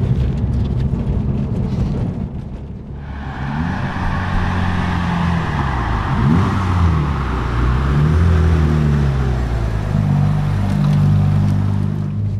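Turbocharged four-cylinder engine of a Mitsubishi Lancer Evolution VI Tommi Mäkinen Edition. It holds a steady note for the first few seconds, then its revs rise and fall several times as the car accelerates, shifts and slows through bends.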